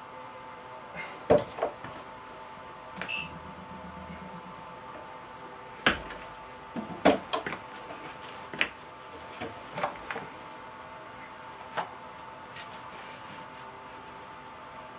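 Scattered sharp knocks and clicks of footsteps and of small objects being handled and set down on a wooden board, the loudest about a second in and around six and seven seconds in, over a steady faint hum.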